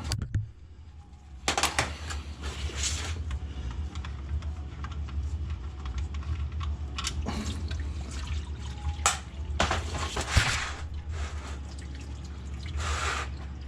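Old engine oil pouring from the oil pan's drain hole into a drain container, a splashing stream that surges louder several times.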